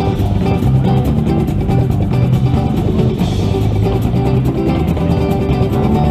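Instrumental music with guitars, bass and drums, steady and loud.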